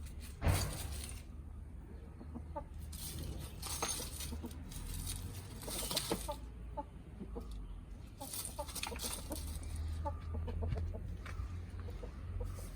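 Backyard chickens clucking softly and intermittently while feeding, with short scattered clucks and a few brief rustling bursts.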